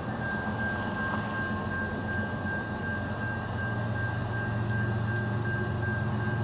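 Railroad grade-crossing warning bell ringing in a rapid, even series of dings, over a low rumble from an approaching train that grows louder toward the end.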